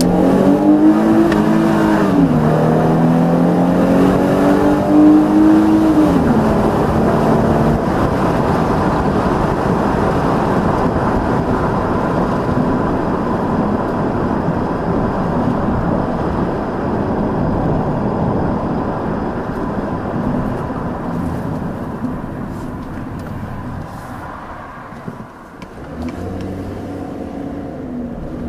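2010 Ford Taurus Limited's 3.5-litre DOHC V6 accelerating, picked up by a microphone on the hood. The engine note climbs, drops at an upshift about two seconds in, then climbs and drops at another upshift a few seconds later. After that a steady rush of wind and road noise takes over and slowly fades, and near the end the engine note rises again under acceleration.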